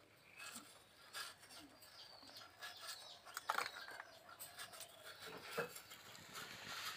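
Lumps of jaggery being cut and scraped against a boti, a curved blade fixed upright on a wooden base, in irregular faint rasping strokes with the odd sharper scrape.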